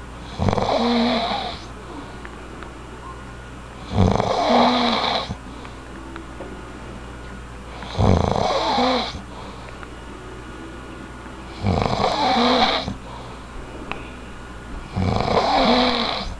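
Someone asleep snoring, five snores about every three and a half to four seconds, each lasting about a second.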